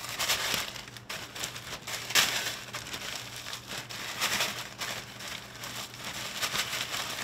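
Plastic zip-top bag crinkling as it is shaken and turned, with crushed Flamin' Hot Doritos crumbs rustling inside as they coat a battered piece of mahi. The crinkling is uneven, with several louder rustles.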